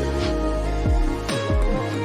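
Background pop music with a steady beat, bass and sustained synth chords.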